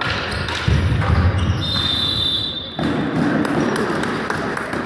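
A referee's whistle blows one steady high note for about a second, near the middle, over thuds of sticks and ball on a sports-hall floor; hand clapping and crowd noise follow in the hall.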